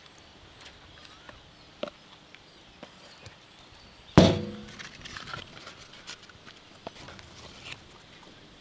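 Scattered light clinks and taps of metal cooking utensils, with one loud metallic clang about four seconds in that rings on briefly.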